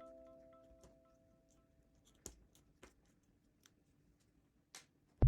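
The held notes of a musical jingle ring out and fade away. Then come a few faint, scattered clicks and light rustles of handling.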